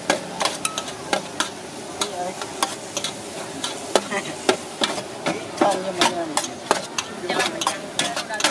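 Metal spatula scraping and clanking against a wide, shallow metal pan while stir-frying noodles and vegetables, irregular sharp clanks about two or three a second over steady sizzling.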